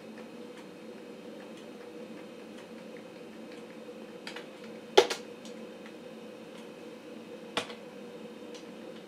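Steady hum of a running 486 PC with faint ticking throughout. Two sharp clicks break it, one about five seconds in and a lighter one about two and a half seconds later, as the diagnostic screens are worked through.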